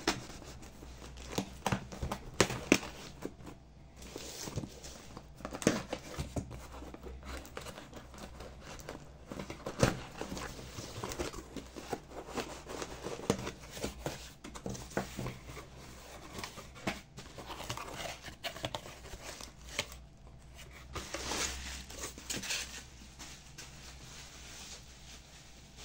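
Rustling and crinkling of packaging, with scattered clicks and knocks as items are handled and unwrapped.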